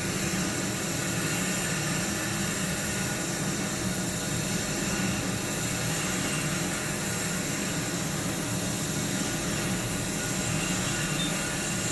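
Doall TM-1822 vertical infeed bandsaw running, its infeed feeding the stock forward: a steady, unchanging mechanical hum and hiss.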